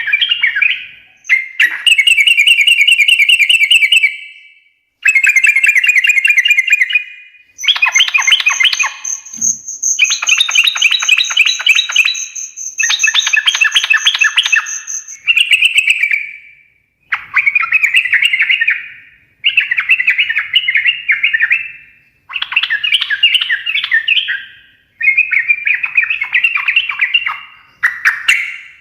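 Yellow-vented bulbul (trucukan) singing a fast, bubbly chattering song in repeated phrases of two to three seconds with short gaps. A steady high whistle runs over the song for several seconds in the middle.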